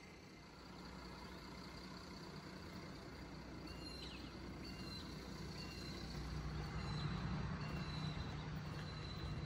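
A truck engine running, a low rumble that grows steadily louder. From about four seconds in, short high chirps come roughly once a second.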